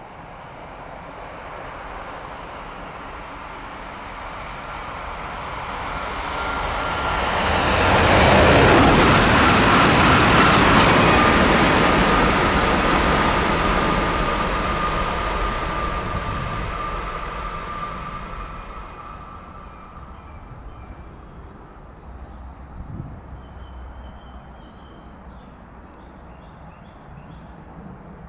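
A train passing at speed on the High Speed 1 line: a rushing sound that builds, is loudest about eight to eleven seconds in, and fades away over the next ten seconds, with a faint steady whine under it. Birds chirp faintly before it arrives and after it has gone.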